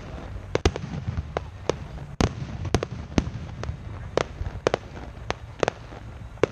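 Fireworks finale: aerial shells bursting in quick, irregular succession, about two sharp bangs a second, over a continuous low rumble.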